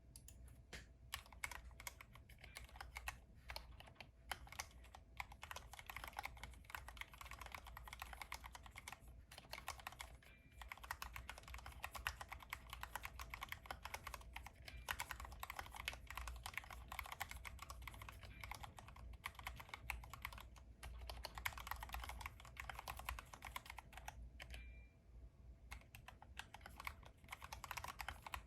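Continuous fast typing on a Glorious GMMK Pro 75% mechanical keyboard with an aluminium case, a steady stream of keystroke clicks broken by a few short pauses.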